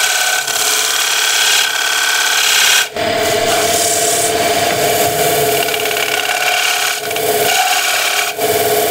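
Spindle gouge cutting a decoration into a cherry bowl spinning on the lathe: a continuous scraping hiss with a steady tone underneath. It breaks off briefly about three seconds in as the tool lifts.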